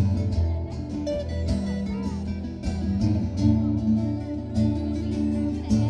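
A band playing an instrumental passage with no singing: guitar over a steady bass line and drums.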